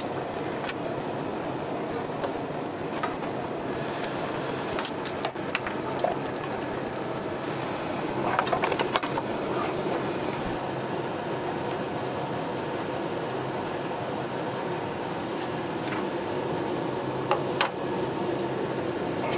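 A steady mechanical hum with scattered clicks and knocks of metal parts being handled as a mini lathe's drive motor is taken off, with a louder clatter of clicks about eight to nine seconds in.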